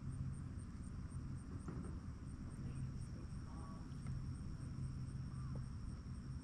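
Insects chirping steadily outdoors, a thin high pulse repeating about two or three times a second, over a low hum that swells and fades.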